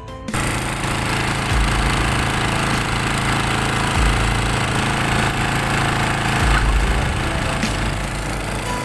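A small engine running steadily, with a low rumble swelling about every two and a half seconds.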